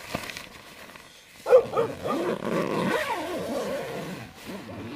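Several dogs barking and howling at once, their calls overlapping, starting about a second and a half in.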